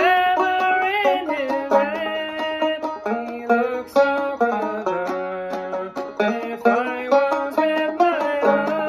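Banjo being played: a steady run of plucked, ringing notes forming a tune.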